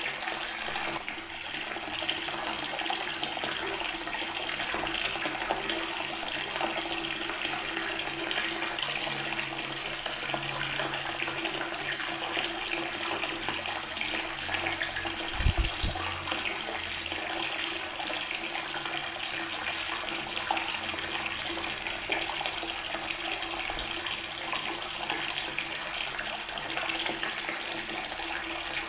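Water from a tap running steadily onto natural stone, a continuous splashing rush. About halfway through there is one brief low thump.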